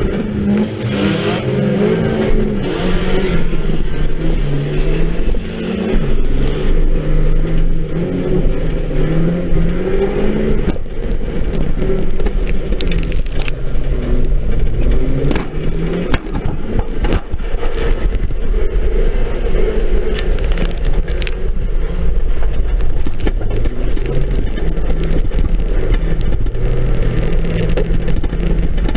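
Banger race car's engine heard from inside the stripped-out cabin, its revs rising and falling in steps as it drives on a dirt track, with frequent knocks and rattles from the bare body shell.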